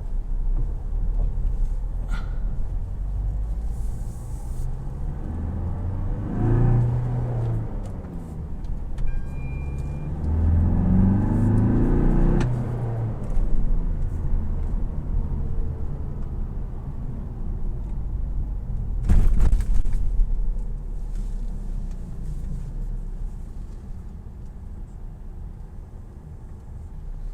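Tata Harrier's 2.0-litre diesel engine and road noise while driving: a steady low rumble, with the engine note swelling twice under throttle in the first half. A loud thump comes about two-thirds of the way through.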